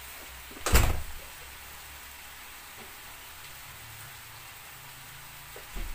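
Diced potatoes frying in oil in a pan, a steady sizzle, with one loud knock about a second in and a smaller one near the end.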